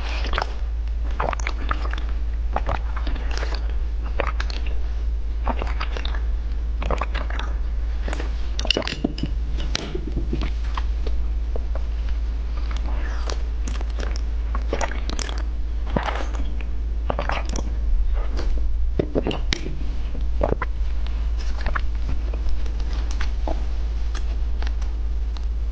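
Close-miked eating mouth sounds: wet sucking and slurping clicks as pink jelly is drawn out of plastic test tubes, then biting and chewing gummy eyeball candies near the end. A steady low hum runs underneath.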